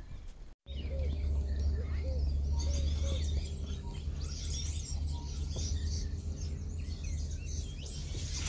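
Many birds chirping and calling together over a steady low rumble.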